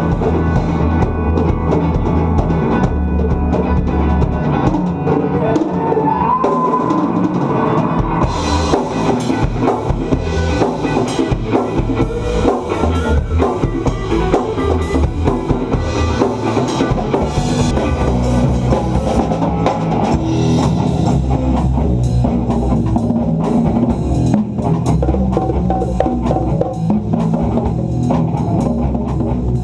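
A rock band playing live: a full drum kit with kick drum and cymbals, electric guitar and bass.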